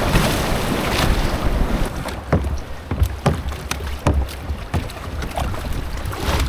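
Kayak moving on the sea, with wind buffeting the microphone and water splashing. From about two seconds in, irregular sharp slaps and knocks come every half second to a second.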